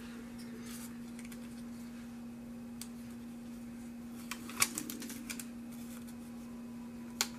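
Paper stickers being handled, peeled and pressed onto planner pages: a few light clicks and paper rustles, with a cluster of sharper taps about halfway through and one more near the end, over a faint steady hum.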